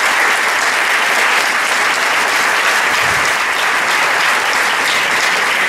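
Large audience applauding steadily: dense, even clapping.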